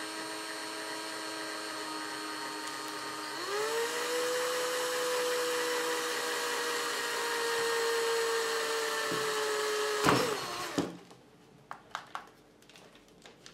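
Black & Decker cordless drill with a pilot bit drilling pilot holes into a plastic rifle stock. The motor whines steadily, rises in pitch about three seconds in and holds there, then winds down and stops about ten seconds in. A few light clicks follow near the end.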